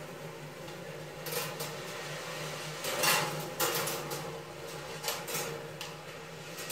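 Glass marbles rolling along a stainless steel wire marble run, with several sharp clicks and clacks as they drop and strike the rails and each other, the loudest about three seconds in. A steady low hum runs underneath.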